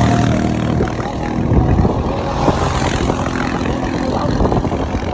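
Car driving over a rough, rocky track: the engine runs steadily under many short knocks and rattles from the road.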